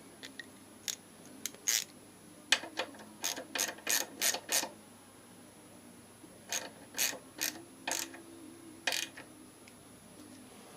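Sharp metallic clicks from handling the motorcycle's rear brake caliper parts and tools, coming in two quick runs of several clicks each with short pauses.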